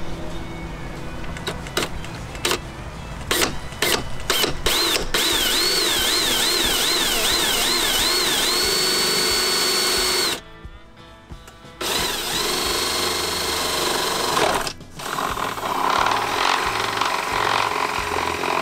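Cordless drill with a 1/8-inch bit drilling through a fiberglass boat dash. A few short stutters of the motor come first, then a high whine that swings rapidly up and down before holding steady. It stops about ten seconds in and runs again steadily for about three seconds, and it sounds rougher near the end.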